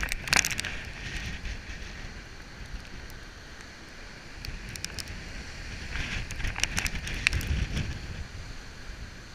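Heavy storm surf breaking on a rocky shore with a deep rumble, while strong wind buffets the microphone with crackling gusts. The roar swells from about six seconds in as a big breaker crashes.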